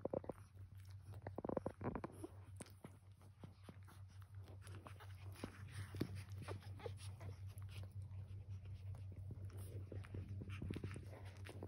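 Newborn puppies nursing at their mother, with soft suckling clicks throughout and a few brief squeaks in the first two seconds. A steady low hum runs underneath.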